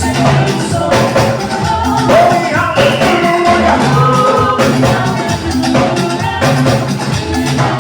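Live band playing with singing over it: a steady beat with bass, drums and shaker-like percussion.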